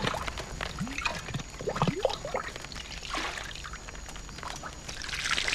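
Bathwater scooped from a large metal pot and poured over a person, with splashing and trickling; a heavier pour swells near the end.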